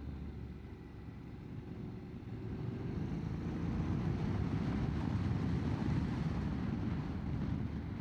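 Motorcycle engine running on the move, with wind and road noise. The engine note rises and gets louder after about two seconds as the bike climbs.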